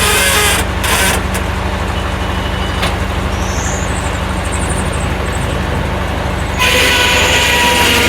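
Engine driving a Corley circular sawmill, running steadily. A loud rushing noise comes in briefly at the start and again from about six and a half seconds in, as the saw cuts.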